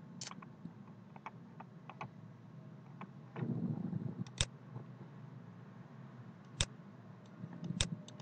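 Scattered sharp clicks of a computer pointer button over a faint steady hiss, the three loudest about four and a half, six and a half and eight seconds in, with a brief low noise just before the first of them.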